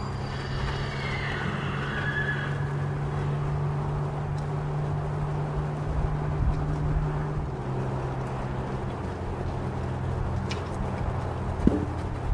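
A horse whinnies in the first few seconds, a call of gliding pitches, over a steady low hum. A few hoof clicks and a short sharp sound come near the end.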